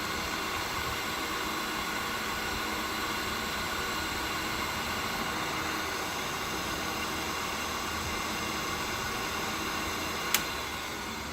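Cuttermaster tool and cutter grinder's single-phase motor and spindle running steadily in reverse, a smooth even hum with a whine. A sharp click about ten seconds in, after which the sound starts to fade as the machine slows.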